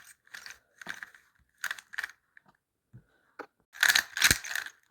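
3x3 Rubik's cube being turned through an F2L algorithm: a string of short plastic clicks from single layer turns, then a faster, louder flurry of turns near the end.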